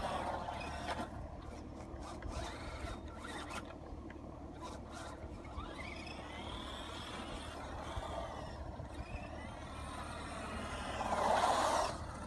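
Electric motor of an ECX Amp brushed RC car whining as it is driven, its pitch rising and falling with the throttle, over a steady noise of tyres and drivetrain. It gets louder shortly before the end.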